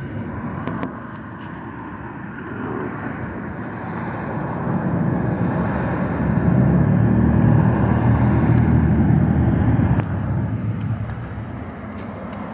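A motor vehicle driving past on the road, its engine and tyre rumble swelling over several seconds, loudest near the middle, then fading away.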